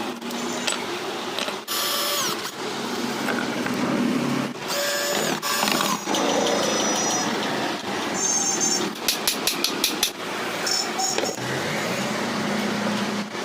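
A small motorised tool or machine running in short spliced clips that start and stop abruptly, with a quick run of clicks about nine seconds in.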